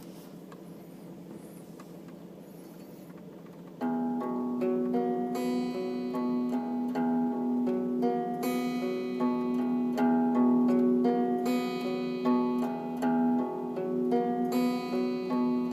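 A faint steady hiss, then plucked-string music starts about four seconds in: quick picked notes over a held low note.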